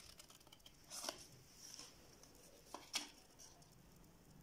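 Scissors snipping through folded paper, a few short quiet cuts around one second in and again near three seconds in.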